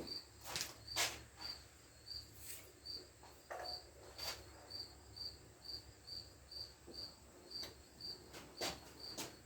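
A cricket chirping steadily, a short high chirp a little under twice a second, with scattered clicks and knocks as the measuring indicator is moved along the lathe bed.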